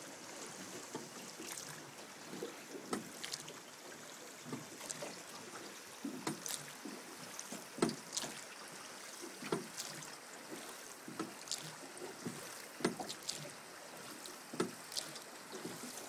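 River water splashing and slapping around a drift boat, with short splashes every second or two over a steady rush of moving water.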